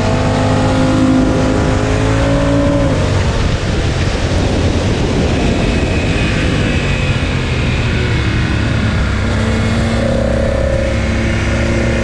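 Motorcycle engine pulling through bends under steady wind rush on the helmet microphone. Its pitch rises, drops away about three seconds in and picks up again near the end. At one point the left footpeg scrapes on the asphalt in a deep lean.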